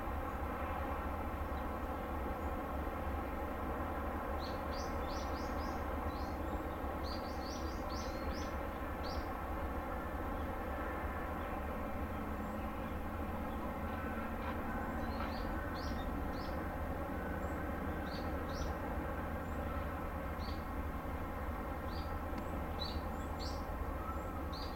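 Steady low hum of a large cruise ship's machinery while it manoeuvres in harbour, an even drone made of many stacked tones. Small birds chirp over it in quick clusters of high notes, several seconds in and again through the second half.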